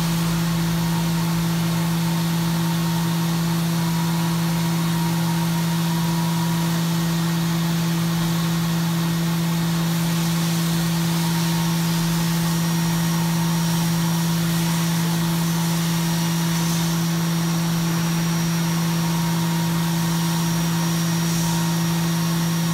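CNC milling machine running steadily: a constant hum over an even hiss, with a faint high whine joining about halfway through.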